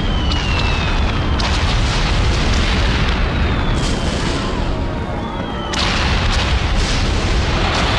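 Battle sound effects: a steady rumble of explosions, with three whistles of falling shells gliding down in pitch, and sharp blasts about a second and a half in and near six seconds.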